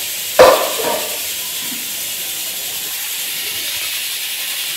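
Steady hiss of a pressure cooker venting steam as the beans cook, with a single clank of a metal pan about half a second in.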